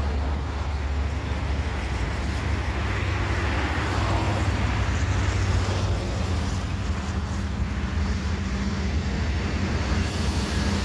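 Steady low rumble of road traffic mixed with the distant jet noise of an airliner on approach, with some wind on the microphone.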